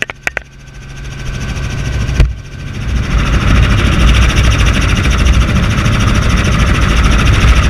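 Helicopter rotor and engine noise mixed with wind rushing through the open doorway, growing loud from about three seconds in. A few sharp clicks come in the first half-second, and a knock at about two seconds.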